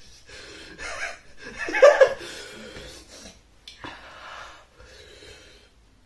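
Heavy, breathy puffs and gasps through an open mouth, with a louder outburst about two seconds in: a person panting to cool a mouth burning from an extremely hot chip.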